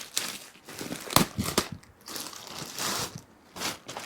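Packing material crinkling and crackling as it is handled and pulled off a new BMX bike, with a few sharp clicks about a second in.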